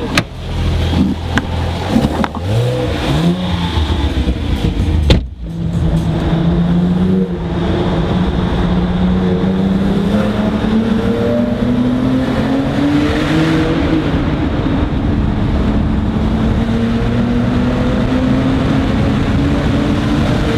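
Porsche 997 Turbo's flat-six running through an Akrapovic exhaust. It blips and revs unevenly for the first few seconds, then gives a sharp loud crack with a brief drop about five seconds in, and after that pulls in one long, steady acceleration with the pitch rising slowly.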